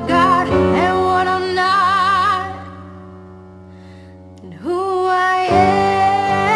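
Background song: a sustained singing voice with vibrato over guitar accompaniment. About halfway through, the music drops to a quiet pause, then the voice slides back in and the full accompaniment returns.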